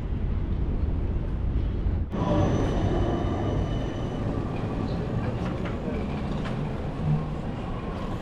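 Outdoor city street ambience: a steady low rumble of passing vehicles. The audio breaks sharply at an edit about two seconds in, and after it faint steady high-pitched whines sit over the rumble.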